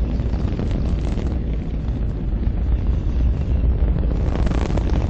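Atlas rocket explosion burning as a fireball: a steady, deep rumble with crackling over it, swelling a little near the end.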